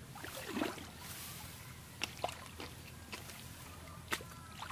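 Hands working in shallow muddy water, sloshing and splashing it, with a few sharp clicks about two seconds in and again near the end.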